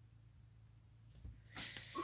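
Quiet room tone, then a short breathy noise near the end.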